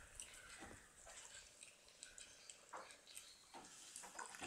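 Faint, scattered small clicks and smacks of two kittens chewing and licking bread buns and fish scraps, a few separate ones spread over the seconds.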